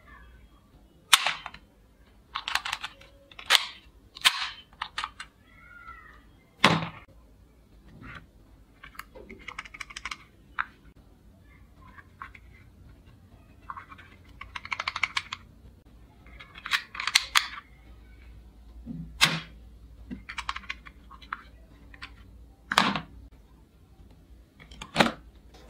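Hard plastic toy guns knocking and clattering as they are handled and shifted about in a cardboard box: several single sharp clacks and short runs of rapid clicking.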